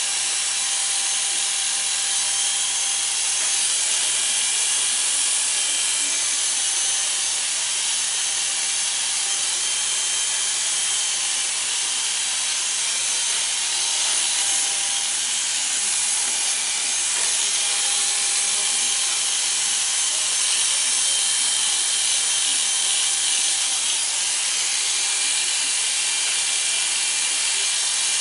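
Corded electric hair clippers running steadily while cutting short hair on the side and back of the head.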